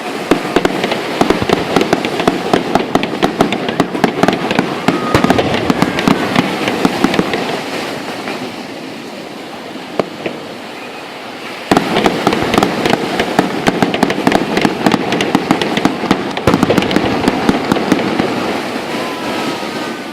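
Fireworks going off in rapid, dense volleys of crackles and pops. They ease off about eight seconds in and start again abruptly around twelve seconds in, with a faint whistle or two over them.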